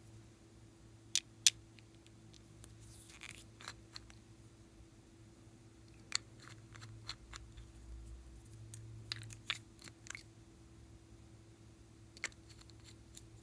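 Small plastic bottles and their caps handled and opened: sharp plastic clicks and taps in scattered clusters, the loudest two close together about a second in, over a faint steady hum.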